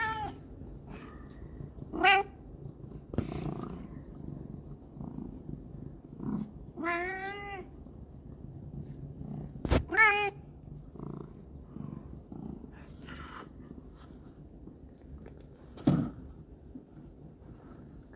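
A cat meowing about four times in short, rising-and-falling calls, with a few sharp clicks and a dull knock between them.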